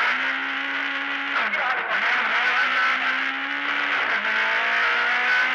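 Rally car engine heard from inside the cabin, pulling hard under acceleration; its pitch holds high and then drops sharply at gear changes about a second and a half and four seconds in.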